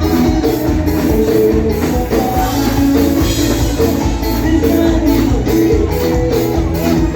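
Loud music with heavy bass and a steady beat.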